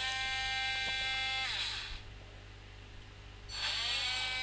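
Small robot arm's joint motors whining as the arm moves. The whine falls in pitch and stops about a second and a half in as one move ends. After a pause of under two seconds it rises again and holds steady as the next move starts.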